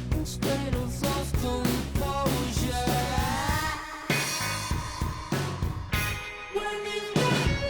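Background music: a rock-style track with drums and bass, and a gliding melodic line. The drums drop out for about two seconds midway, then return.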